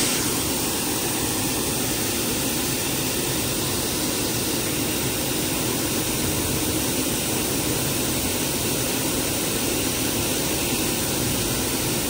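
Steady rushing roar of a John Deere combine unloading on the go, its auger pouring a stream of soybeans into a grain trailer while the combine runs alongside.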